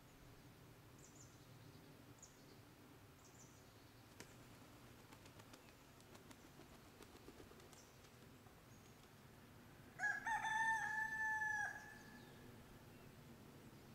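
A German bush chicken (Deutsches Buschhuhn) rooster crows once about ten seconds in, a single crow of under two seconds. A few faint, high chirps come in the first few seconds over a quiet outdoor background.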